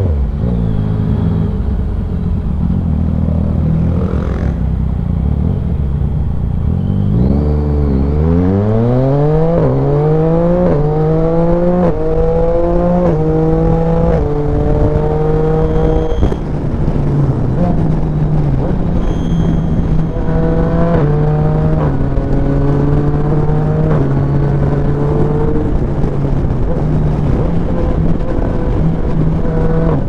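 Yamaha Tracer 900 GT's inline three-cylinder engine pulling away from low speed, its note rising through several quick upshifts, then running steadily at cruising speed with another brief rise in revs about two-thirds of the way through. Wind rushes over the microphone throughout.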